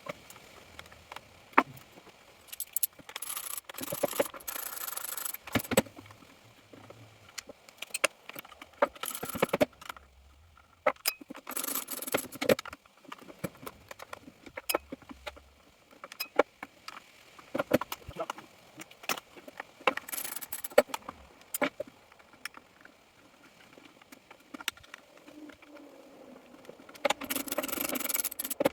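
Metal tools and small screws clicking, clinking and scraping as Torx screws are undone and the plastic housing of a Stihl FS38 string trimmer is taken apart, with several short bursts of scraping.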